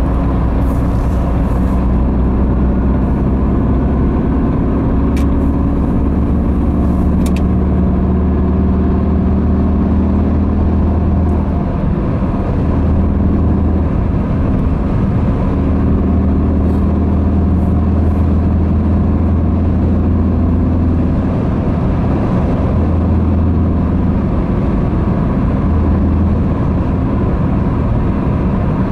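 Car cabin noise at motorway speed: a steady low rumble of tyres and engine heard from inside the car, with two faint clicks around five and seven seconds in.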